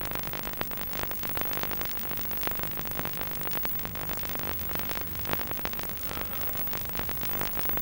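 Steady background music.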